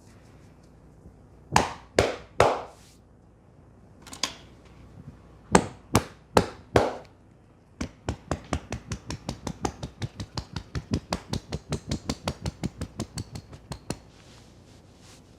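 Percussive hand strikes of an Indian head massage on the head and shoulders: three sharp slaps, a pause, four more, then a fast, even run of about five slaps a second for roughly six seconds.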